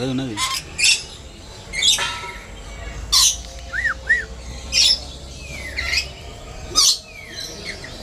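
Lorikeets screeching: short harsh calls about once a second, with two brief rising-and-falling whistled notes about four seconds in.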